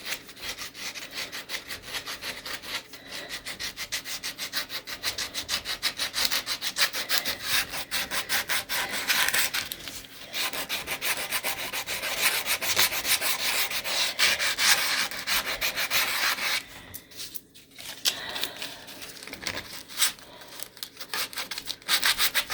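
Sandpaper rubbed by hand over wood in rapid back-and-forth strokes during final smoothing, with a short pause about two-thirds of the way through.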